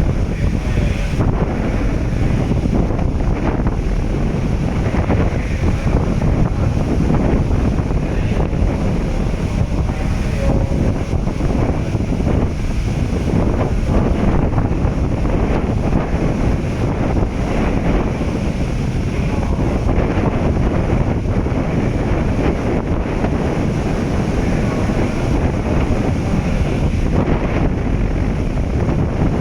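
Strong wind buffeting the microphone: a loud, steady, gusting rumble that covers other sounds.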